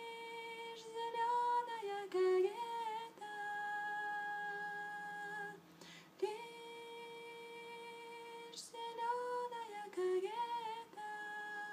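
A woman singing a cappella without words: two matching phrases, each a long held note followed by quick turns of pitch and a second long note.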